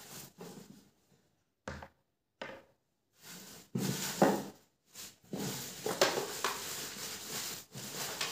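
Newspaper packing rustling and crumpling in irregular bursts, with short pauses between them and longer stretches of handling in the second half.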